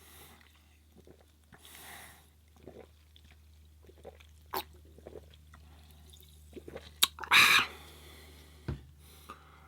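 A carbonated drink being opened: a sharp click and then a short fizzing hiss about seven seconds in, with a few quieter clicks and mouth sounds of eating around it.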